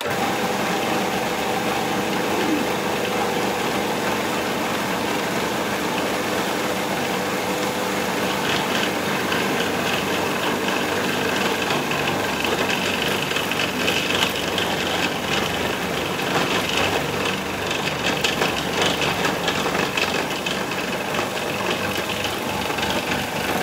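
Magimix food processor running steadily, its blade churning a thick, sticky date-and-nut dough, with a rougher, higher whirr from about eight seconds in. The dough comes together into a ball, the sign that it is done, and the motor is switched off at the end.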